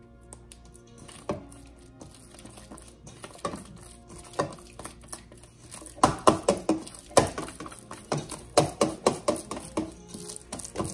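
Wet sourdough dough being mixed by hand in a stainless steel bowl (Rubaud mix): sticky slaps and squelches of dough and fingers against the bowl, sparse at first, then a quick run of several slaps a second from about six seconds in. Soft background music plays underneath.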